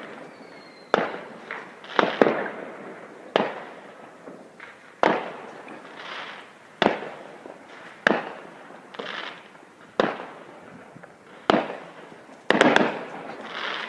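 Fireworks going off: about a dozen sharp bangs at irregular intervals, each echoing away, with a quicker cluster of bangs near the end.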